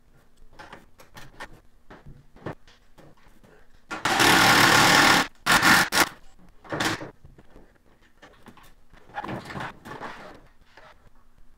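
A power driver runs hard for about a second, then in two short bursts, with a softer run near the end. Light clicks and knocks of parts being handled fall between the runs.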